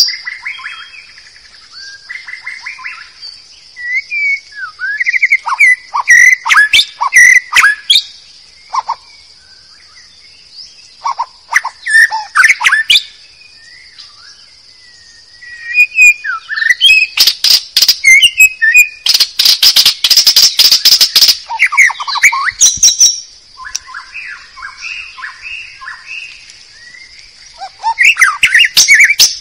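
White-rumped shama singing: varied whistled phrases broken by runs of rapid, harsh chattering, the loudest and longest run past the middle, with softer phrases in the quieter gaps. A steady thin high tone runs underneath.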